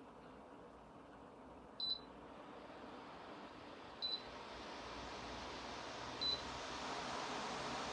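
Tower fan's airflow hiss, faint at first and growing louder in steps as the speed is raised. Each step is marked by a short high beep from the fan, three beeps about two seconds apart.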